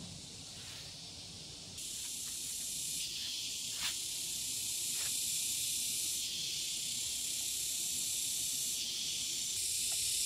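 A steady high-pitched hiss that grows louder and softer in sudden steps every few seconds, with a light tap about four seconds in.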